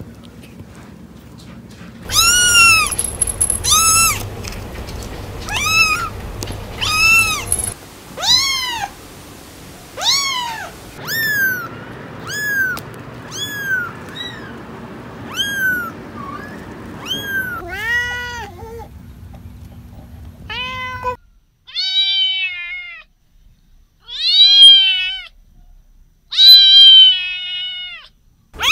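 Young kittens meowing: a long run of high, thin meows, each rising and then falling in pitch, coming about once a second from about two seconds in.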